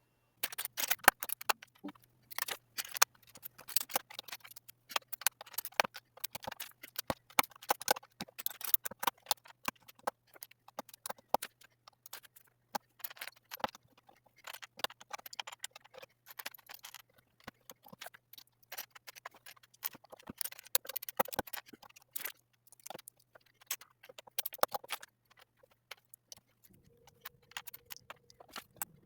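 Plastic LEGO bricks clicking and rattling as they are handled, pulled apart and snapped together in quick, irregular succession.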